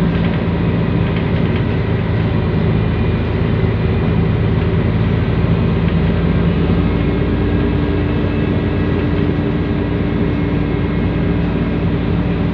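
Scania L113CRL city bus's rear-mounted six-cylinder turbo-diesel running at a steady pitch, heard from inside the passenger cabin as the bus drives along, with a faint high whine from its loud turbocharger over the road and engine noise.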